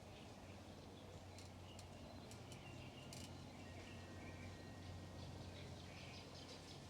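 Faint outdoor ambience: scattered short bird chirps over a low steady background hum.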